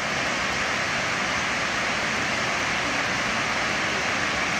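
Steady rushing of a waterfall pouring down a rock face.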